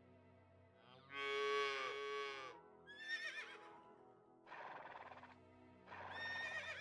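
A cow mooing once, a long low call about a second in, then a horse whinnying with a quavering call around three seconds and again near the end, with a short breathy noise between. Soft background music runs underneath.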